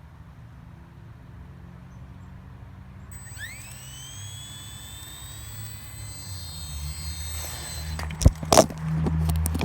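Small electric RC helicopter's motor spooling up: a high whine that rises in pitch about three seconds in and then levels off, over a low hum that grows louder toward the end. Two sharp knocks near the end.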